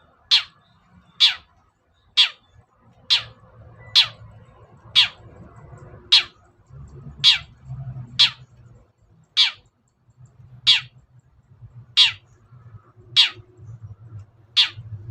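Long-tailed shrike (cendet) giving a lure call: a string of short, harsh notes, each dropping sharply in pitch, about one a second, fourteen in a row.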